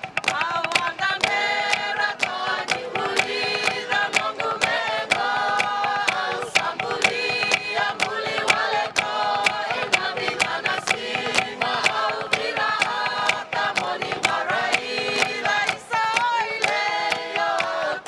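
Pacific Island group song performed live: a choir of women's and men's voices singing together, with sharp hand claps and slaps keeping a steady beat for a seated dance.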